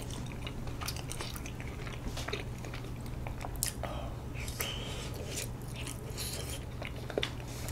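Close-up chewing and biting of microwave-warmed bandal-tteok, half-moon glutinous rice cakes filled with sweet red bean paste, heard as many short, wet mouth clicks. A steady low hum runs underneath.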